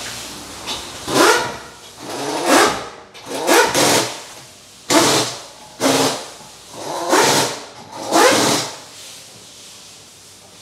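Toyota Corolla Altis car engine revved in short throttle blips, about eight in a row, each rising in pitch and dropping back to idle.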